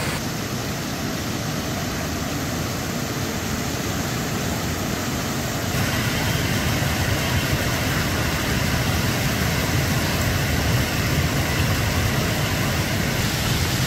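Floodwater of the swollen Godavari River rushing and churning over a ledge, a steady low rushing noise that gets louder about six seconds in.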